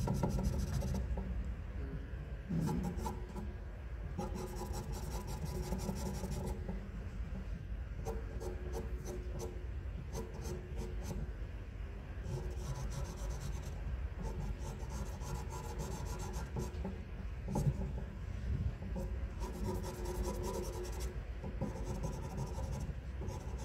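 Faber-Castell pastel pencil hatching on charcoal paper: fast, scratchy back-and-forth strokes in runs broken by short pauses.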